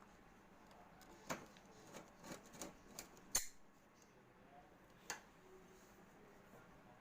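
A few scattered clicks and light knocks, the loudest about three and a half seconds in, with a quiet room between them.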